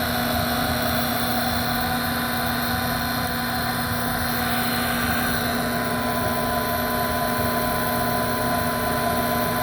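Draft inducer motor of an Airtemp 90% gas furnace running with a steady, noisy drone. The racket is the sign of a worn motor that needs replacing.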